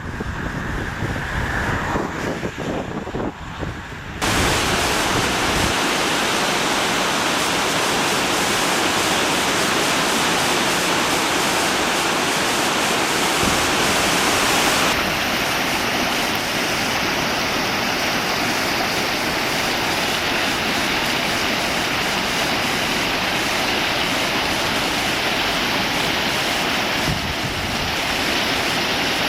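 The River Cree in flood: fast, swollen river water rushing in a loud, steady roar of noise. It starts abruptly about four seconds in, after a few seconds of quieter, uneven rumble.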